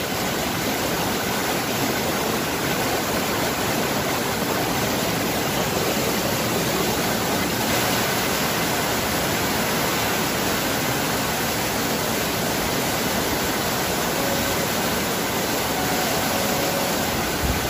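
Typhoon wind and heavy rain making a loud, steady rushing noise.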